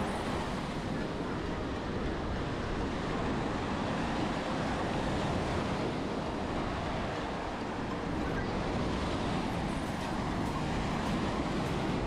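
Surf breaking on a sandy beach with wind: a steady, even rush that holds level throughout.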